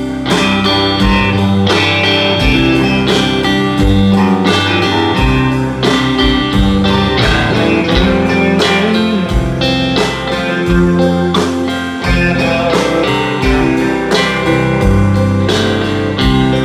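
Live electric band playing an instrumental break with no singing: electric guitar lead lines over a second electric guitar, bass and a steady drum beat.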